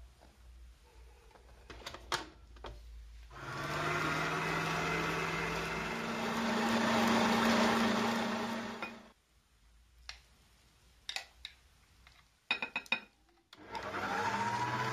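Master Gourmet stand mixer's motor running with its wire whisk in a glass bowl of cream and mascarpone. It starts a few seconds in, steps up in pitch partway through and stops after about six seconds. After a few clicks it starts again near the end, rising in pitch as the speed is turned up.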